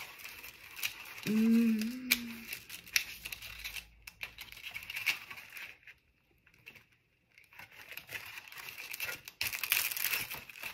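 Clear plastic packets of adhesive embellishment dots with cardboard headers being shuffled and flipped through by hand, crinkling and rustling with small clicks. A brief hummed voice sounds about a second in, the handling pauses briefly past the middle, and the rustling gets busier near the end.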